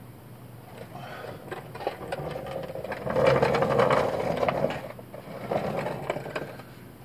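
Small power tool motor running with a fast clicking rattle in two runs: a longer one that builds to its loudest about three to four seconds in, then a short second run near the end.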